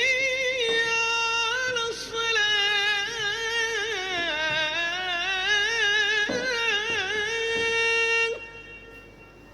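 A single high voice singing long held notes with a wavering pitch, unaccompanied, stopping about eight seconds in.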